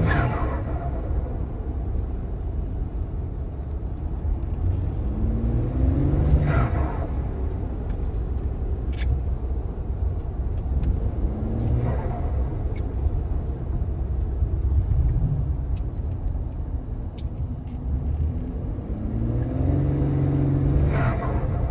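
Ford 2.7 EcoBoost twin-turbo V6 accelerating in several hard pulls about six seconds apart, the engine note rising with each, then dropping as the throttle closes, when the turbos flutter. A steady low rumble runs under it.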